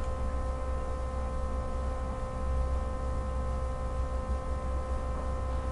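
Steady electrical hum with a low rumble, even and unchanging: background noise of the recording.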